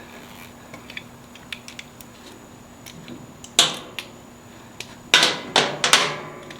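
Small metal bolts and hand tools being handled: scattered light clicks and ticks, then several sharper clacks in the second half.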